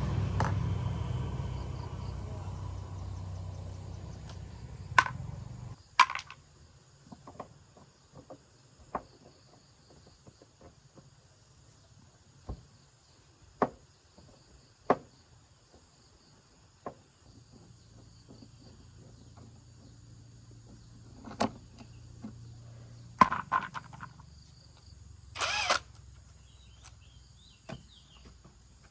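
A motor runs with a steady low hum and cuts off about six seconds in, followed by scattered clicks and knocks.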